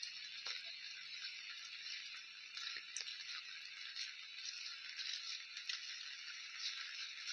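Steady rain falling: a fine, even hiss with scattered small taps of drops.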